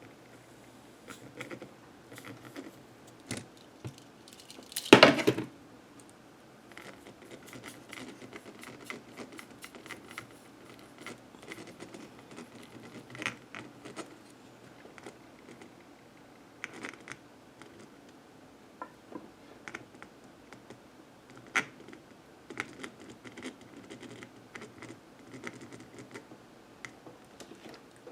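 Scattered light clicks, taps and scrapes of small tools and parts being handled on a workbench, with one louder knock about five seconds in.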